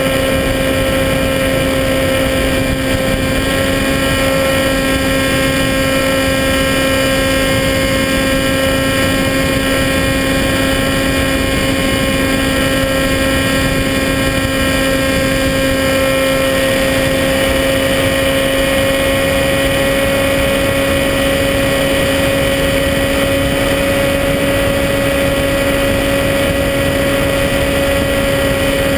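Electric motor and propeller of a Skywalker 1880 FPV plane droning at a steady pitch, with wind rushing past the onboard camera.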